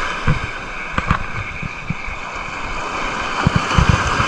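Small sea waves washing and breaking against the shore in a steady hiss, with wind buffeting the microphone in low, uneven thumps.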